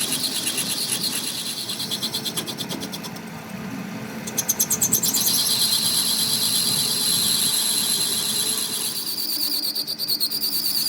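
Insects trilling in fast, even pulses at a high pitch. The trill drops away about three seconds in and comes back louder about a second later.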